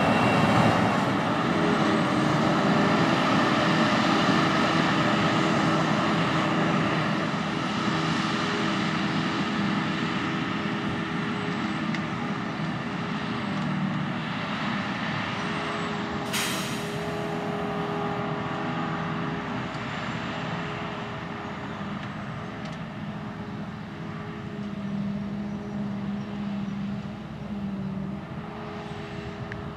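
Diesel engines of farm tractors and a self-propelled forage harvester running steadily, loudest at the start as a Massey Ferguson 7719 S tractor passes close, then fading. A brief sharp hiss about halfway through.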